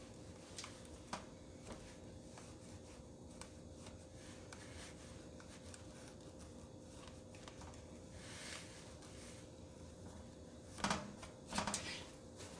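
Faint rubbing of a cloth pressed over the laminate overlay of an oven control board, with a few light clicks. Near the end come a few louder knocks.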